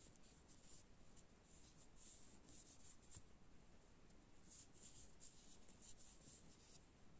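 Faint scratching and rustling of a metal crochet hook pulling yarn through stitches, in short irregular strokes.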